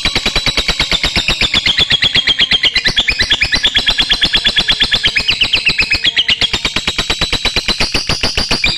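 Lovebird's long 'ngekek' chatter: a rapid, unbroken trill of sharp chirps, about a dozen a second, wavering a little in pitch.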